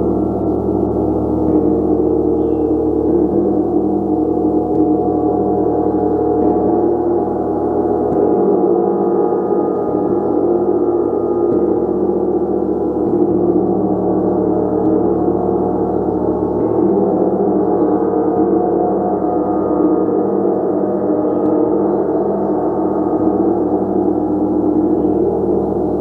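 A gong played continuously, a dense wash of overlapping ringing tones that stays steady in loudness without dying away.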